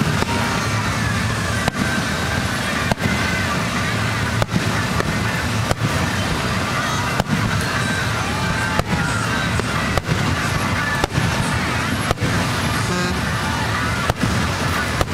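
Aerial fireworks going off, about a dozen sharp bangs roughly one every one to two seconds, over a steady background of crowd noise.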